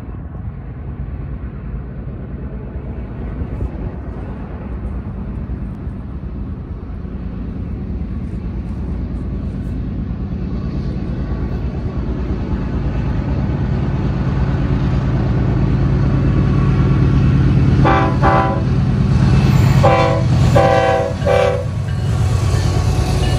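Diesel freight locomotives approaching, their low engine rumble growing steadily louder as they near. The lead locomotive then sounds its chime horn in three blasts, the last the longest, for the grade crossing just before the units pass close by.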